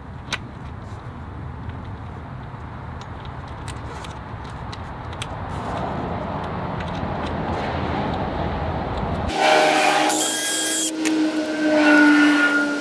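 A low rumble with a few faint clicks, then a power drill spins up and whines as it bores bolt holes to mount a snow deflector on a plow. The drill runs in one burst lasting about a second and a half, then a shorter one near the end.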